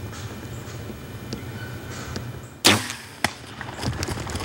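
A bow shot: one sudden loud snap of the bowstring, then a second, shorter knock about half a second later, as a hunter shoots at a whitetail buck.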